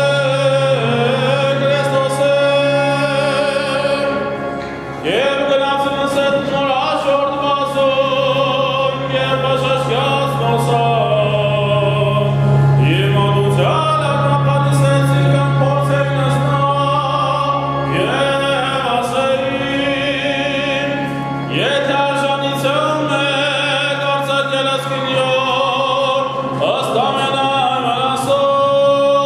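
Liturgical chant: voices sing a slow, ornamented melody that slides between notes, over a steady low held drone.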